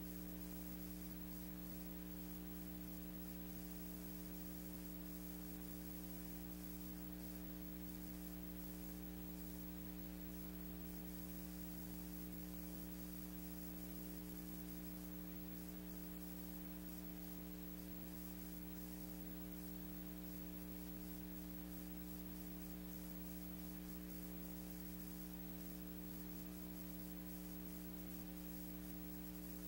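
Steady electrical hum with faint hiss and crackle, unchanging throughout, the background noise of a blank film soundtrack.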